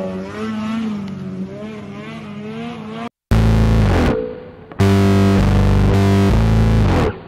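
Snowmobile engine running hard as the sled skims across open water, its pitch wavering up and down for about three seconds. After a brief cut, loud distorted electric guitar music with heavy chords takes over.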